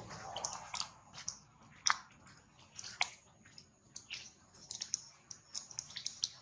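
Baby monkey suckling at its mother's nipple: irregular wet smacking and clicking mouth sounds, a few to several a second.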